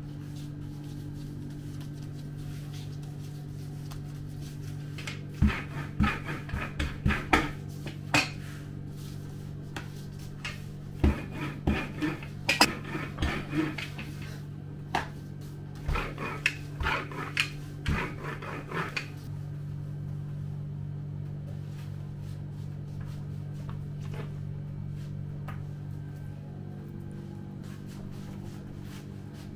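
Metal kitchen utensils and dishes clattering and clinking in several runs of sharp knocks through the middle stretch, some with a short ring, over a steady low hum of kitchen equipment.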